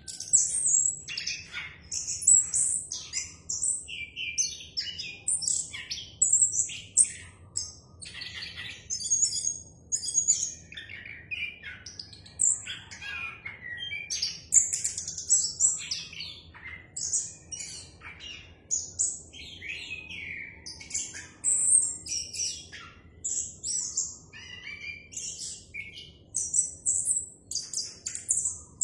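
Orange-headed thrush singing a long, unbroken song of quick, varied, high clear notes, whistles and chattering phrases run together with hardly a pause.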